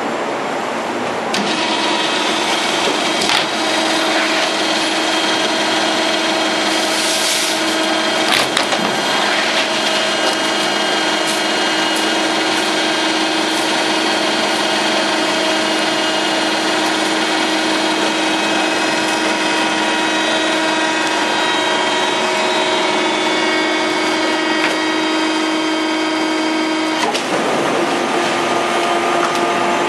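Plywood hot press machinery running steadily: a hum with several steady whining tones that set in about a second and a half in and change pitch near the end, over dense factory noise. Scattered knocks and scrapes of wooden panels are handled at the press.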